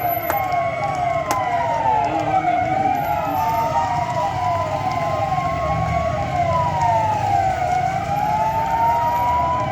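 Several police vehicle sirens sound together. One gives a fast repeating up-sweep about three times a second, and another gives a slow wail that rises and falls over a few seconds. Engine rumble runs underneath.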